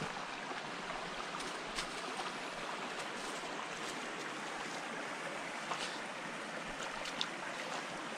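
Flowing stream water, a steady even rush, with a few faint sharp clicks.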